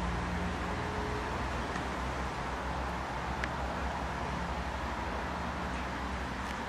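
Steady outdoor background noise, a low rumble with hiss, with no distinct events.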